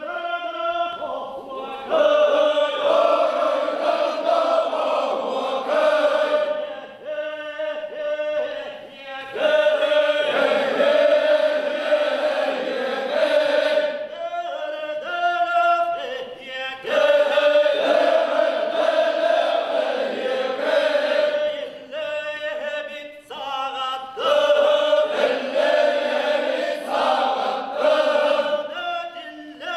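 Yakut osuokhai round-dance song sung by men: a lead singer sings a line alone and the chorus answers it in unison. They trade back and forth about every five to seven seconds.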